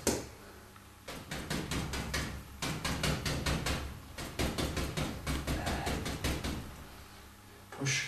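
Short-bristled stippling brush tapped against a stretched canvas on an easel, dabbing in tree foliage: runs of quick soft taps, several a second, with a quieter stretch near the start and near the end.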